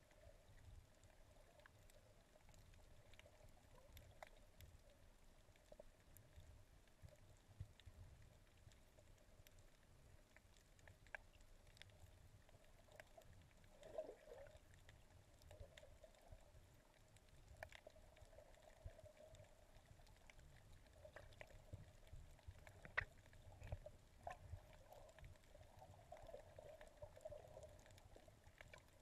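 Near silence: faint muffled water noise heard underwater through a GoPro camera housing, with scattered small clicks.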